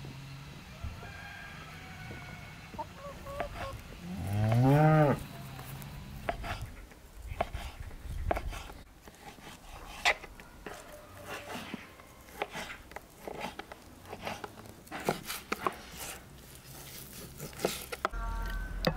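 A cow moos once, about four seconds in: a single call that rises and then falls. Afterwards a knife taps and knocks repeatedly on a wooden chopping board as raw chicken breast is cut into small pieces.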